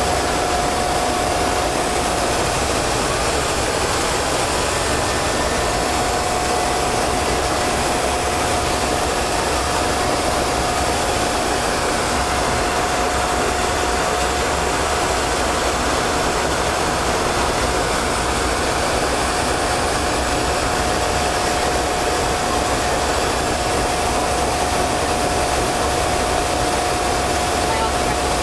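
Aircraft engine and airflow noise heard inside the cockpit in flight after takeoff: a steady, unchanging rush with a thin steady whine running through it.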